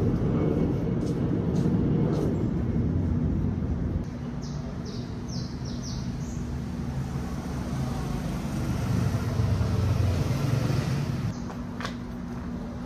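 Street traffic: a low vehicle rumble that swells and fades, loudest in the first few seconds and again about ten seconds in, with a steady hum underneath from about four seconds in.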